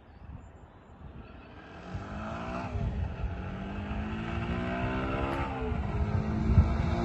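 2015 Yamaha YBR125 Custom's single-cylinder engine as the bike rides toward the listener, accelerating up through the gears. Faint at first, it grows steadily louder; the engine note climbs, drops at a gear change about three seconds in, climbs again and drops at a second change near the end.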